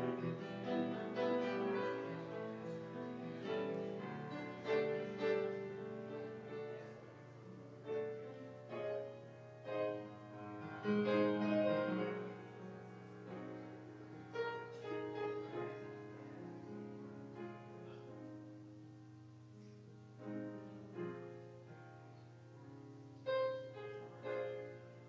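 Instrumental music led by piano, with a steady low hum underneath.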